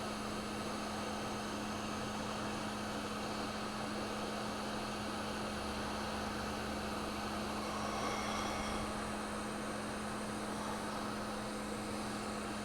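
Hot air rework station blowing steadily, with a constant electrical hum underneath, while it reflows the solder balls on a chip's reballing stencil.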